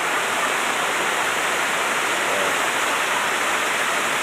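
Steady rush of water pouring over the dam into the gorge, an even hiss with no change in loudness.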